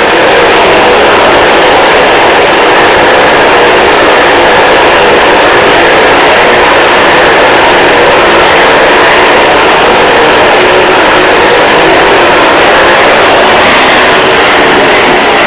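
Motorcycle engines running without a break inside a steel mesh globe-of-death cage, very loud and steady.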